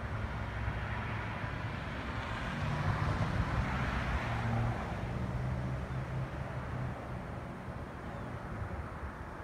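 A motor vehicle passing, its engine hum swelling about three seconds in and fading away after five seconds, over a steady outdoor background hum.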